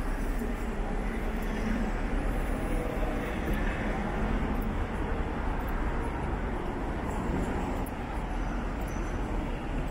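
Road traffic on a city street: cars and a van driving past, a steady hum of engines and tyres on tarmac.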